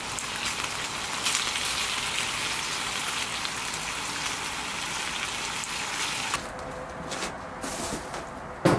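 A steady watery hiss that cuts off suddenly about six and a half seconds in. A few light clicks follow, then one sharp knock near the end.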